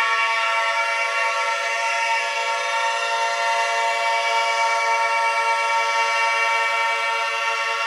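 Many sirens sounding together, their steady tones blending into one dense chord that holds without rising or falling.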